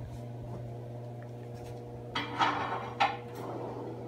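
Metal kitchen utensils clattering and clinking as they are handled: a short rattle about two seconds in and a sharp clink around three seconds, over a steady low hum.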